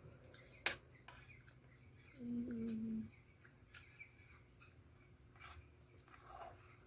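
Quiet eating sounds with a few sharp clicks. About two seconds in comes a short, closed-mouth 'mmm' hum, held for about a second with a small step in pitch.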